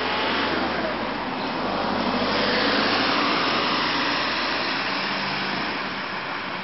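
Rushing noise of a passing vehicle, swelling about two to three seconds in and fading again.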